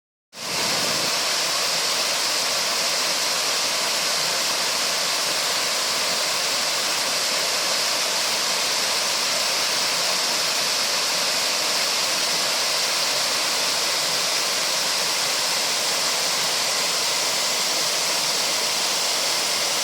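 Huai Yang waterfall: a steady, unbroken rush of falling water.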